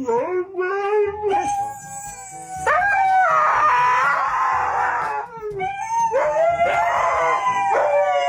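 A dog howling in long, wavering drawn-out notes, about three in a row with short breaks between them.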